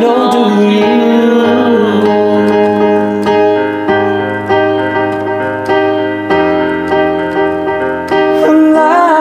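Piano playing a slow instrumental passage, chords struck and left to die away. A sung note trails off in the first moments, and a singing voice comes back in near the end.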